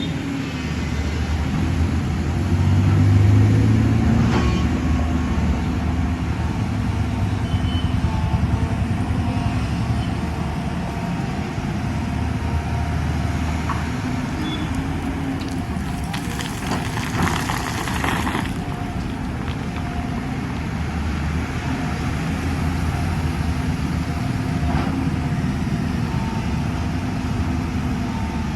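JCB 215 LC tracked excavator's diesel engine running steadily under load. Past the middle, a rushing hiss lasts about two seconds.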